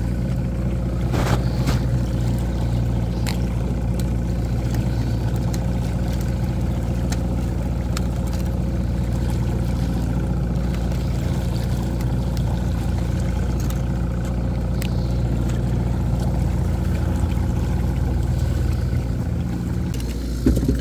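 Evinrude 115 outboard motor running steadily at trolling speed, a constant low hum. A few sharp clicks come through in the first few seconds.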